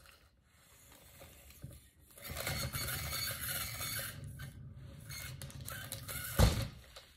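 A paint-pour turntable spun by hand with a wet ceramic tile on it: about two seconds in it starts a steady whirring, rubbing noise for about four seconds, cut short by a sharp thump.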